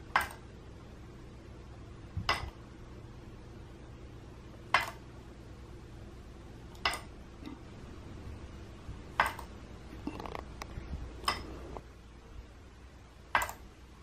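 Wooden seesaw bird automaton rocked back and forth by hand, giving a sharp wooden clack each time it tips, about every two seconds, seven in all, with a few lighter clicks between about ten and eleven seconds.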